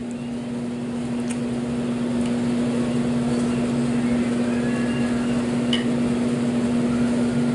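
A steady electrical appliance hum with a couple of faint light clicks.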